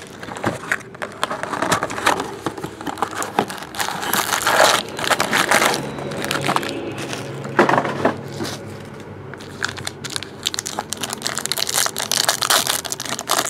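Cardboard trading-card box opened and foil-wrapped card packs handled and torn open: dense crinkling and crackling of foil with quick clicks and rustles, louder in bursts.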